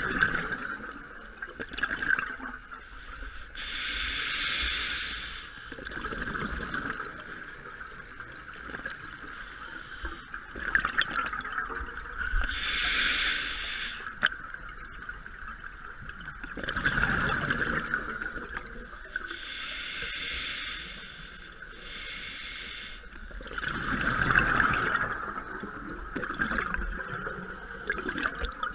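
Open-circuit scuba regulator breathing heard underwater: a hissing inhale through the regulator, then a gush of exhaled bubbles, repeating slowly every several seconds. A steady high hum runs underneath.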